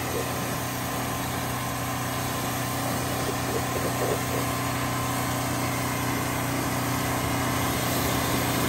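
Small engine running steadily at a constant speed, with the hiss of a pressure-washer spray rinsing a car.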